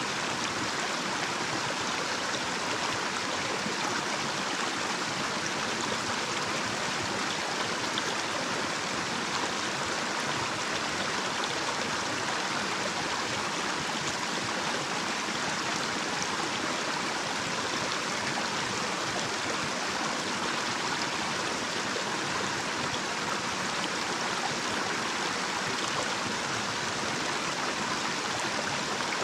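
Small, shallow stream running over a little cascade: a steady, even rush of flowing water.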